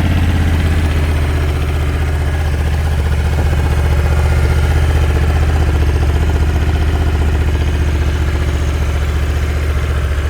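Honda Africa Twin's 1084 cc parallel-twin engine idling steadily just after being started.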